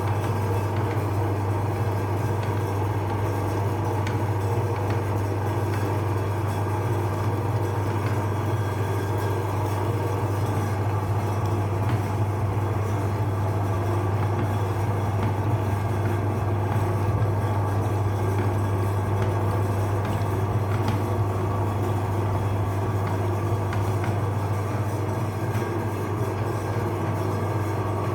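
Meat grinder running with a steady, unchanging mechanical drone and a strong low hum.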